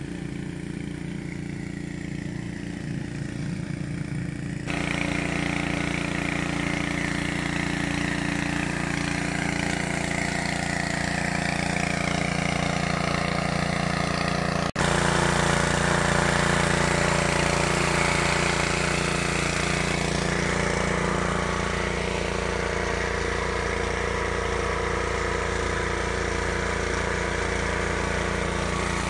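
Small engine running steadily at a constant speed, getting louder about five seconds in and again about fifteen seconds in.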